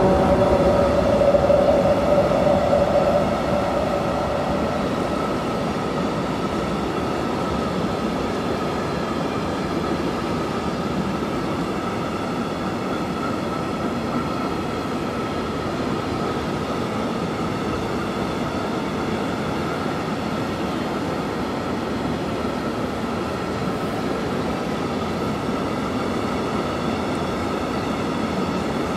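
Freight train of tank wagons rolling past: a steady rumble of wheels on the rails with a thin steady tone running through it. A louder, lower tone in the first few seconds fades away about four seconds in.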